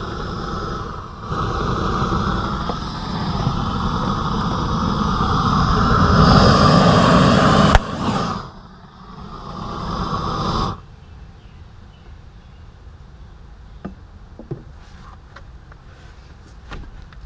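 Propane torch flame running steadily against a beer can; about eight seconds in the heated, pressurised can bursts with a sharp bang and beer sprays out. The torch noise stops suddenly a few seconds later, leaving only faint scattered ticks.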